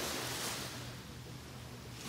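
Small waves breaking and washing up a sandy beach: a soft rush of surf that swells about half a second in and fades away.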